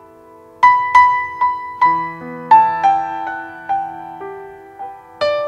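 Solo piano music: a slow melody of single struck notes that ring and fade. It comes in about half a second in, after a brief lull.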